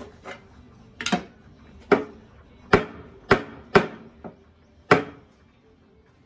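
A milk pitcher knocked on the counter, about seven sharp knocks over four seconds at uneven spacing, each with a short metallic ring. This is the tapping done after steaming, to settle the bubbles in the milk before pouring latte art.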